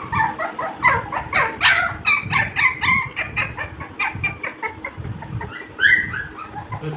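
A rapid series of short, high-pitched animal calls, several a second, with one longer call near the end that rises and falls.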